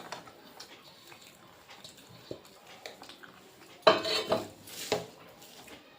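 Dishes and utensils clinking faintly during a meal, with a few louder sharp clinks about four seconds in and again a second later.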